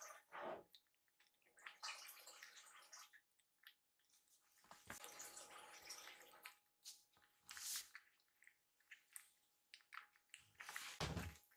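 Two kittens eating from ceramic bowls: faint, irregular eating sounds, with a louder short sound near the end.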